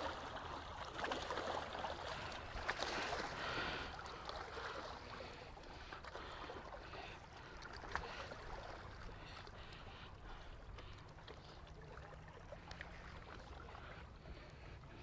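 Lake water lapping and splashing, busier in the first few seconds, with a few sharp clicks.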